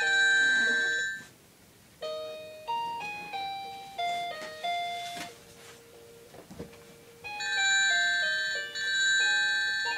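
Electronic telephone ringtone playing: a ringing chord of several tones for about a second, a short gap, then a run of separate notes stepping up and down, each fading away, and the ringing chord again for the last few seconds.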